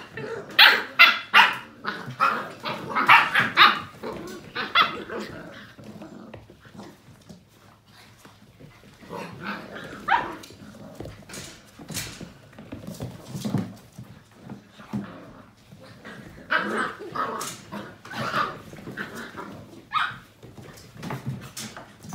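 Portuguese Water Dog puppies barking and yipping in play, in flurries of short barks with a quieter spell about a third of the way in and another flurry past the middle.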